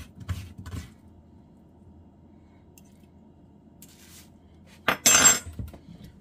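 Metal spoon scraping seeds and pulp out of a halved raw butternut squash in a few quick strokes that stop about a second in. About five seconds in, a loud, brief metallic clatter of the spoon.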